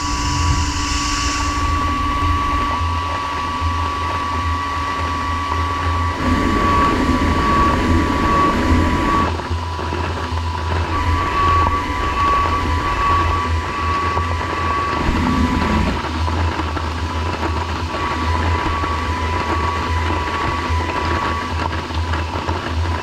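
Studer S41 CNC cylindrical grinder running with a steady high whine over the rush of flood coolant spray, as the wheel form-grinds flats onto a hardened O2 tool-steel part to make a 12-sided polygon.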